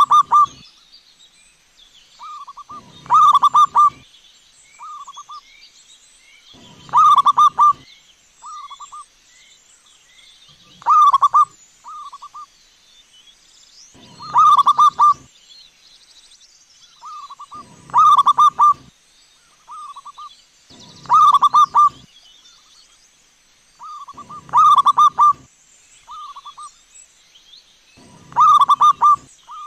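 Zebra dove (perkutut) cooing its song again and again, one phrase about every three and a half seconds. Each phrase is a short lead note, a loud trilled coo and a softer closing note.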